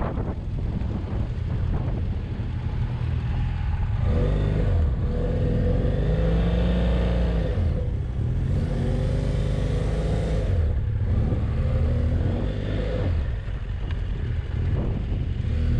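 BMW F800GS parallel-twin motorcycle engine under way on a dirt track, its revs rising and dropping a few times over a low rumble.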